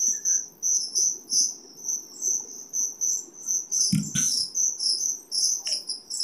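A cricket chirping in a steady run of quick high chirps, a few a second, with a brief knock of metal parts being handled about four seconds in.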